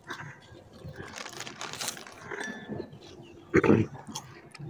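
Crinkling foil chip packet being handled, with scattered small clicks and rustles, and one short louder sound about three and a half seconds in.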